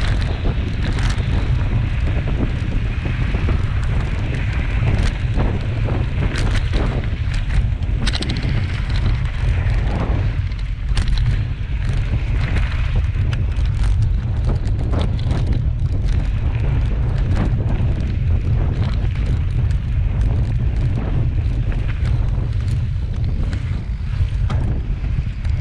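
Heavy wind buffeting on the microphone of a mountain bike speeding down a rocky dirt trail. Frequent sharp clicks and rattles come from the bike jolting over rocks and ruts.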